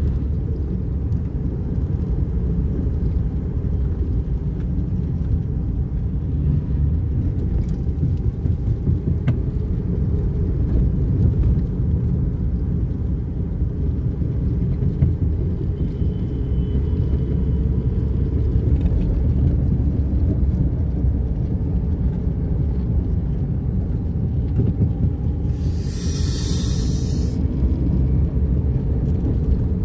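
Car driving along a road, heard from inside the cabin: a steady low rumble of engine and tyre noise. A brief hiss near the end.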